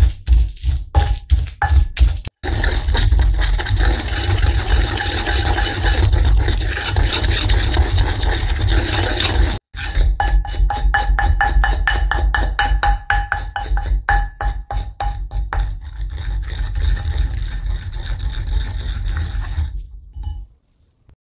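Wooden pestle grinding fresh shiso leaves into a paste in a ridged ceramic suribachi mortar. It opens with separate pounding knocks, then continuous rough scraping, then quick rhythmic strokes about four a second that grow fainter and stop near the end.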